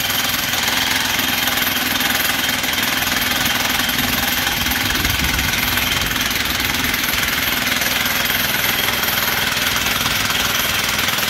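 Jackhammer breaking rock, hammering steadily without a pause, with a motor running under it.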